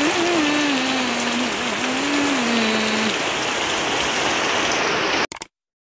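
Heavy rain pelting muddy ground, a dense steady hiss of splashing drops. A low wavering tone runs faintly under it for the first three seconds. The rain cuts off abruptly about five seconds in.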